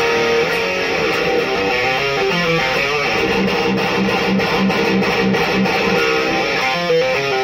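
Heavily distorted electric guitar playing metal riffs: a Solar Guitars A2.6C through a Black Cat Amps Djenttonic distortion pedal, an Electro-Harmonix 44 Magnum power amp and a Peavey 1x12 cab. In the middle comes a steady run of evenly repeated palm-muted chugs.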